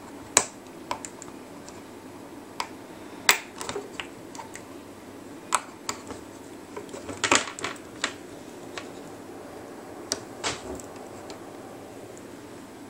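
Small, irregular clicks and snaps of a plastic hook and rubber loom bands against the plastic pegs of a bracelet loom as bands are lifted and pulled over the pegs, with a quick cluster of clicks about seven seconds in.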